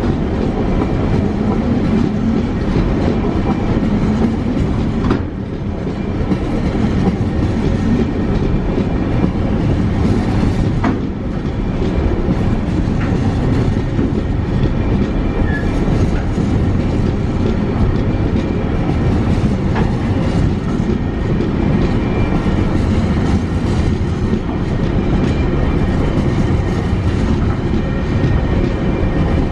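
Tasrail container freight train's wagons, loaded with shipping containers, rolling past: a steady rumble of steel wheels running on the rails.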